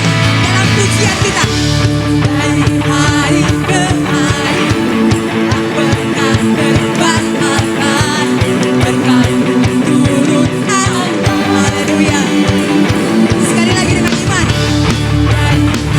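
Live worship band music with electric guitar over a full band, with sustained held chords underneath.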